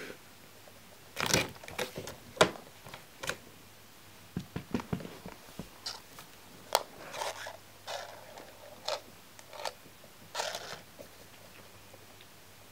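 Paper shopping bag rustling and crinkling in short, irregular scrapes as a kitten inside it bats at the paper handles.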